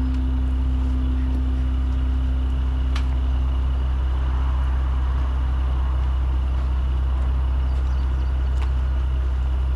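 Steady low hum of an idling truck engine. Over it, a metallic ring from a struck rim or tire iron fades out over the first few seconds, and a couple of light metal clinks come later.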